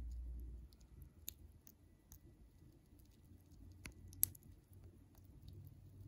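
Siberian chipmunk nibbling a pistachio nut: faint scattered small clicks and crunches of teeth on the nut, with a sharper click about four seconds in. A low rumble stops in the first second.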